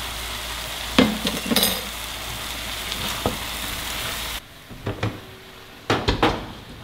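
Chicken thighs sizzling in a pan with sauces and cooking wine, with a few knocks of a utensil against the pan. The sizzling cuts off suddenly about two-thirds through, followed by a few clatters of cookware.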